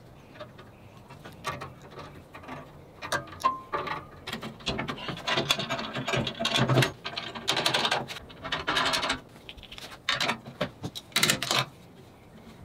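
Metal bandsaw parts being handled: clicks and small knocks as the lower guide blocks are set, then scraping and clattering as the metal table is lifted back onto the saw, with another short burst of clatter near the end.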